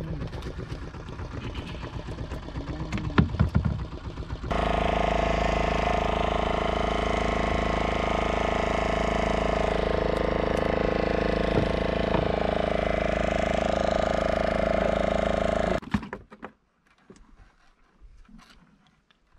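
Boat engine running at a steady speed, starting abruptly about four seconds in and cutting off abruptly near the end. Before it there are scattered knocks and a voice-like sound, and after it only faint handling sounds.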